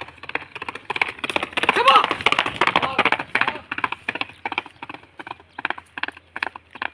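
A horse's hooves galloping on a brick-paved lane, a fast run of clattering beats. They are loudest about two seconds in as the horse passes close, then fade as it gallops away.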